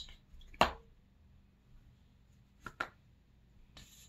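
Hands working a squeeze glue bottle on paper at a tabletop, making small sharp clicks and taps: one loud tap about half a second in, a quick pair near three seconds and a softer one near the end.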